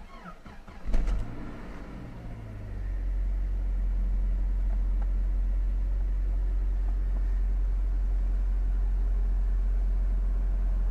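Saab 9-5's engine cranked by the starter and catching about a second in, then settling over the next couple of seconds into a steady idle at about 1,000 rpm.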